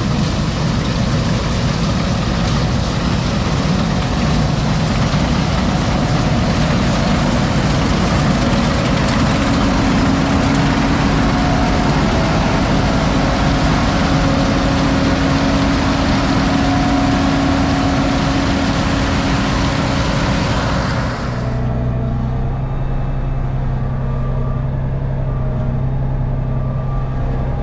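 Heavy farm machinery running steadily during soybean harvest, a dense wide rushing noise from the working machine. About three-quarters of the way through it changes abruptly to a lower, steadier engine hum.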